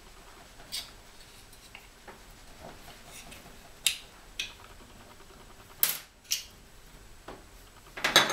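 Sharp clicks and taps of small metal knife parts being handled during disassembly of a folding knife, about seven in all, the loudest about six seconds in and at the end.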